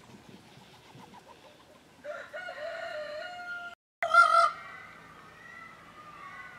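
Indian peafowl calling: a loud, drawn-out call about two seconds in, then a louder, shorter call just after a brief break about four seconds in, trailing off into fainter gliding notes.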